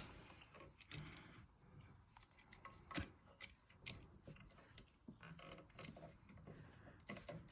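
Faint scattered clicks and taps as a wall light switch and its wires are handled, the clearest about a second in and twice more a few seconds later, over quiet room tone.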